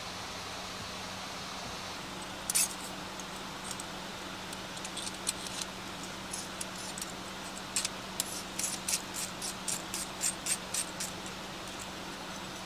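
A run of light, sharp clicks and ticks, one about two and a half seconds in and then a quick irregular series of small ticks through the middle and later part, over a steady low hum.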